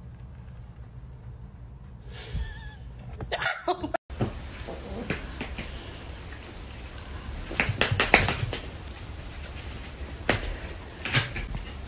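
High, wavering squeaks, then, after a short break, scattered taps and knocks as a corgi puppy and a cat scuffle at the edge of a low table, with the puppy jumping up against it.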